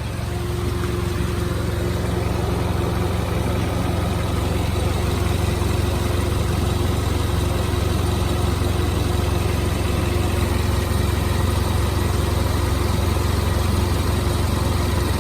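2016 Hyundai Veloster Turbo's 1.6-litre turbocharged four-cylinder engine idling steadily, run for a few minutes after fresh oil to check for leaks.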